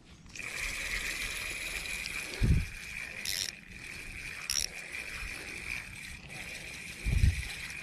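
Fishing reel cranked steadily, a continuous whirring from its gears as a hooked fish is reeled in, with a couple of light clicks. Two dull low thumps, about two and a half seconds in and near the end, come from handling or wind on the microphone.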